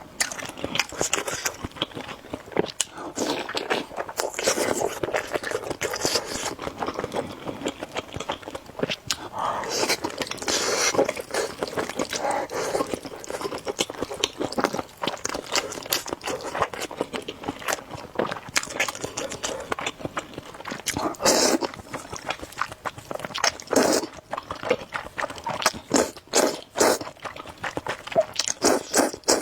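Close-miked eating sounds: a person biting and chewing food in irregular bursts with wet mouth clicks.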